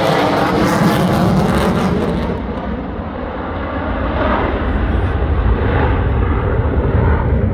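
Jet aircraft flying past, a loud rushing jet noise. The high hiss drops away about two seconds in, leaving a deep rumble that builds again.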